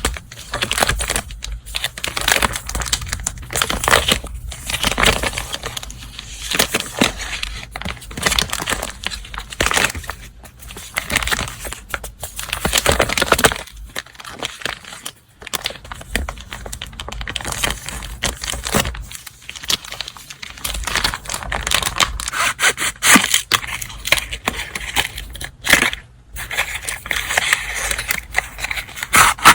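Paper wrapping and stationery items crinkling and rustling as they are unwrapped and handled, in uneven bursts with short pauses.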